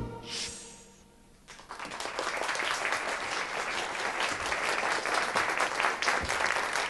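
A song's last note dies away, then about a second and a half in an audience bursts into applause, many hands clapping steadily.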